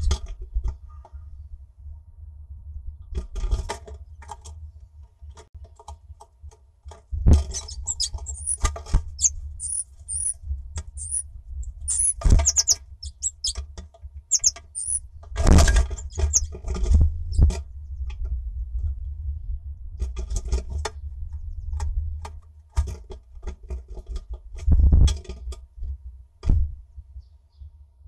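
Small songbird at a wooden nest box: irregular taps, scratches and knocks on the wood, with a run of short, high, thin calls in the middle, over a steady low rumble.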